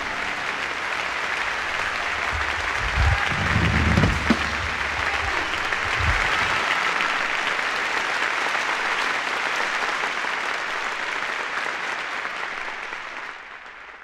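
Concert audience applauding after the final song ends, with a few low thuds under it in the first six seconds; the applause fades out near the end.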